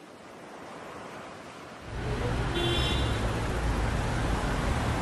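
A rushing wash of noise that swells up, with a deep low rumble coming in about two seconds in and holding steady, and a brief high ringing tone near the middle.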